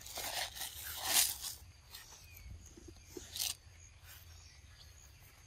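A few short rustling, scuffing noises, the loudest about a second in and another past the middle, over faint steady insect chirring.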